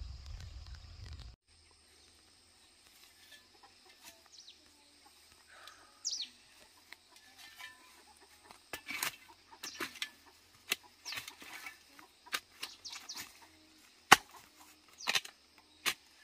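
A long-handled spade chopping and scraping into dry soil in irregular, sharp strikes, the loudest a little past halfway through, with short falling bird chirps between them.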